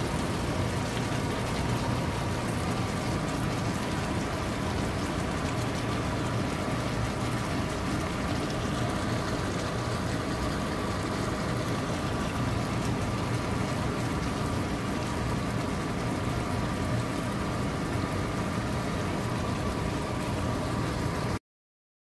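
Chicken afritada stew simmering in a pan, its tomato sauce bubbling and crackling in a steady hiss over a faint steady hum. It cuts off suddenly near the end.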